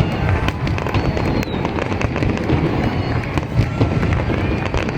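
Fireworks display: continuous rumbling booms with many sharp cracks and crackles packed closely together.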